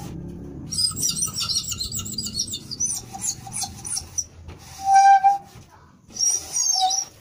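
A homemade window scraper, built from a scrap motorcycle exhaust pipe and old disc-brake parts, squeaking in short strokes as it is dragged across window glass. About five seconds in comes one louder, drawn-out squeal.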